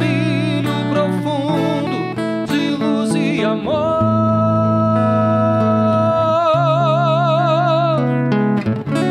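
Male voice singing over acoustic guitar chords. First a few wavering, ornamented phrases, then one long held note from about four seconds in, which takes on a wide vibrato about halfway through and ends about eight seconds in.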